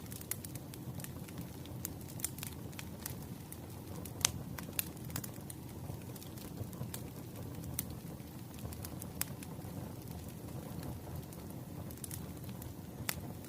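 Wood fire burning: a steady low rumble with frequent crackles and sharp pops from the burning logs, the loudest pop about four seconds in and another near the end.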